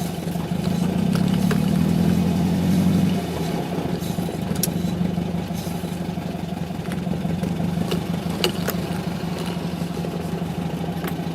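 VW Beetle 1600's air-cooled flat-four engine idling, heard from inside the cabin. It runs a little louder for about the first three seconds, then settles to a steady idle, with a few faint clicks.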